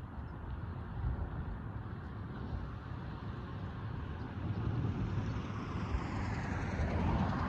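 Road traffic noise, a steady rumble of passing vehicles that grows louder toward the end as a car approaches.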